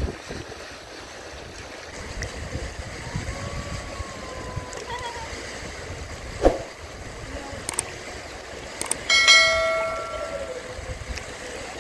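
A fast river rushing steadily over stones. There is a sharp knock about six seconds in, and a short ringing tone about nine seconds in that fades away over about a second.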